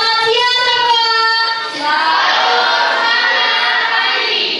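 Young students singing, a girl's voice leading into a microphone. The first note is held for about a second and a half, then a livelier phrase follows.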